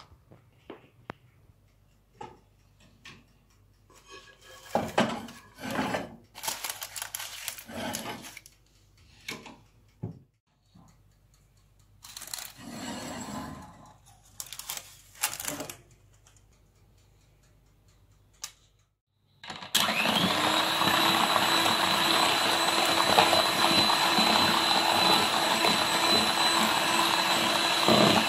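Electric hand mixer starting suddenly about two-thirds of the way in and running at a steady speed with a high whine, its beaters in batter. Before it, scattered scrapes and knocks of a spatula, bowl and baking pan being handled.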